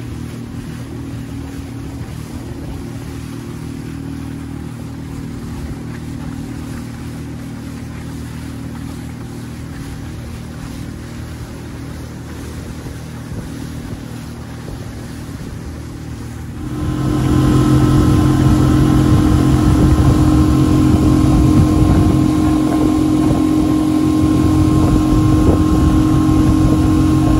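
Mercury outboard motor running steadily at speed, with water rushing and splashing against the inflatable boat's hull. About two-thirds of the way through, the engine suddenly becomes much louder and nearer.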